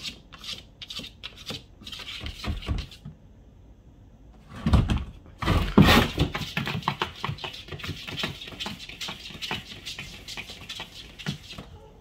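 A cat's claws scratching and scrabbling at the hard plastic sides and floor of a storage tub in fast, repeated strokes. It starts in short bursts, grows louder with thumps of the tub around the middle, then keeps up rapid scratching until near the end.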